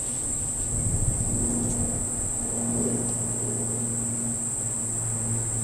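A steady high-pitched whine over a low steady hum, with a few faint light ticks.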